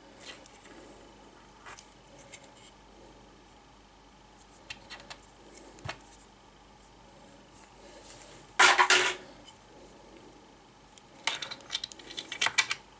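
Small metal tools and parts clicking and clinking on a workbench during soldering repair work on a circuit board. A louder clatter comes about nine seconds in, followed near the end by a quick run of clicks and rattles.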